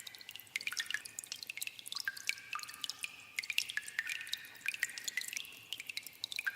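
Water dripping in a cave: many drops falling irregularly, several a second, each a short plink, some ringing at a clear pitch as they hit water, with a slight echo.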